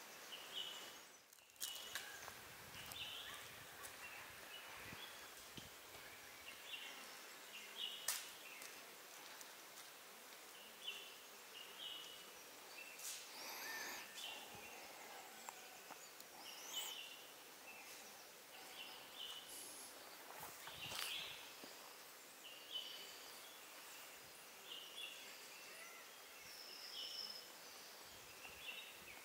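Faint forest background: short high chirps repeat every second or so over a steady hiss, with a few sharp clicks.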